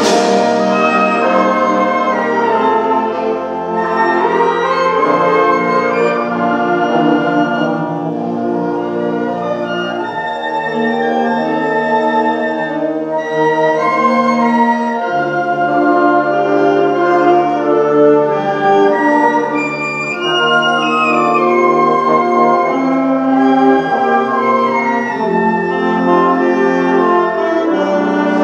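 Concert band of brass and woodwinds playing slow, sustained chords that change every second or two over held low notes.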